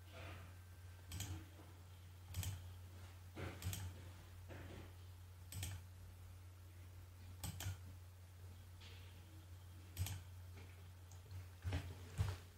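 Faint computer mouse and keyboard clicks, scattered and irregular, roughly one a second, as shapes are drawn and shortcuts pressed in 3D modelling software, over a steady low electrical hum.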